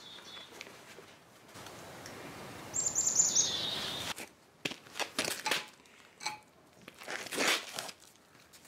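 A small bird chirps a quick run of falling notes about three seconds in, the loudest sound here, over a steady rush of noise. After that come scattered short scuffs and rustles as booted feet and work trousers shift on a concrete floor.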